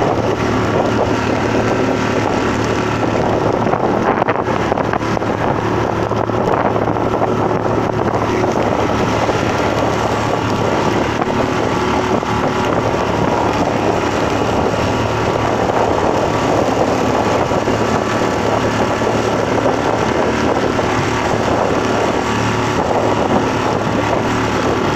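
Outboard motor running steadily at speed on a small open motorboat, with wind buffeting the microphone and water rushing along the hull through choppy waves.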